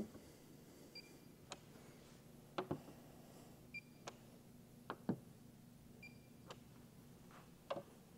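Handheld paint thickness gauge giving short high beeps as readings register, three in all, with faint clicks and taps as its probe is set against the car's painted body panels.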